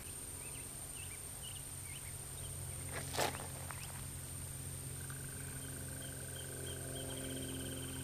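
Outdoor natural ambience: a few short high bird chirps in the first two seconds, a single sharp click a little after three seconds, then a steady high tone joined by a fast high trill near the end, all over a low steady hum.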